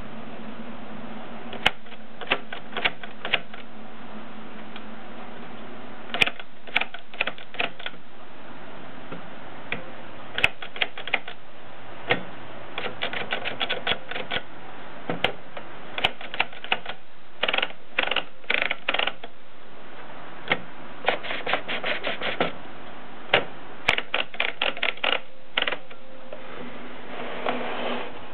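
AEG Mignon index typewriter being typed on: irregular sharp clacks, some single and some in quick runs, with short pauses between. A softer rasping sound comes near the end.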